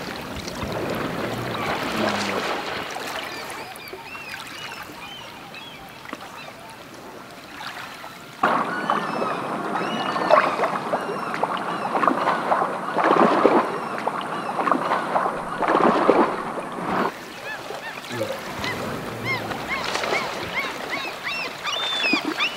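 River water running with birds calling in short, high chirps. About eight seconds in it switches abruptly to a louder underwater rush of water with knocks and bubbling, which stops about seventeen seconds in, and the water and bird calls return.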